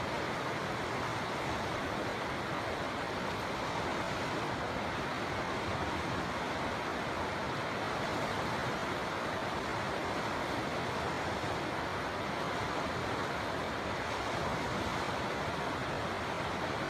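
Steady rushing of a flowing river, an even wash of water noise with no breaks.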